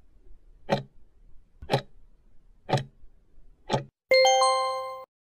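Countdown timer sound effect: a clock ticking once a second, four ticks, then a loud ringing chime about four seconds in as the timer reaches zero, cut off suddenly after about a second.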